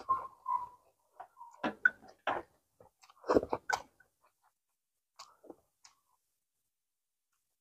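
A mouthful of steamed rice rolls (bánh cuốn) chewed close to the microphone: irregular wet smacks and small crunches, most of them in the first four seconds, a few more around five to six seconds in.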